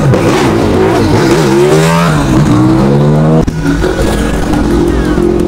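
Motor vehicle engine running under road noise; its pitch climbs as it revs, about a second and a half in, falls back, then holds steady.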